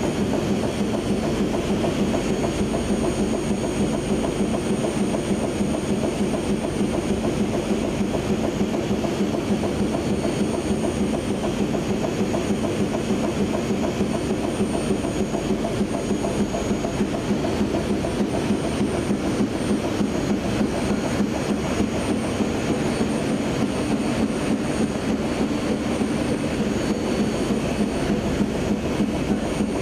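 Adult pants (pull-up diaper) production machine running at speed: a steady, dense mechanical clatter with a fast, even rhythm, with faint steady high whines above it.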